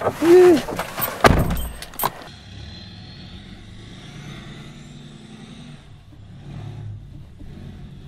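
A vehicle door being worked, with several sharp clicks and a heavy thump in the first two seconds. After that an engine idles steadily and much more quietly.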